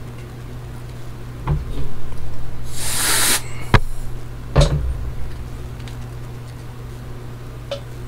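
Light knocks and clicks of a hard drive's metal top cover and parts being handled as the lid is brought over the open drive. A short hiss comes about three seconds in, and a low steady hum runs underneath.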